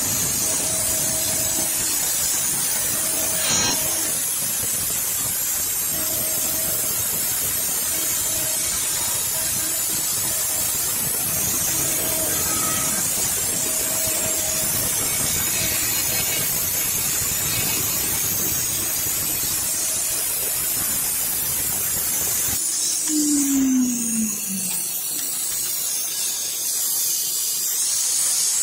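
CNC router's 3.2 kW water-cooled spindle cutting MDF with a bit: a steady high hiss and whine, with a tone that comes and goes as the bit cuts. About 23 s in, the cutting sound stops and a short tone falls in pitch, and a high hiss goes on.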